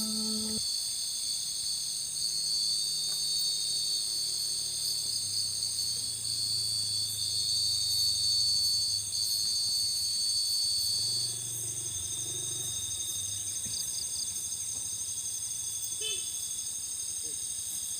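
Steady high-pitched chorus of chirring insects, with a faint low hum underneath. The loudest band drops in level about eleven seconds in.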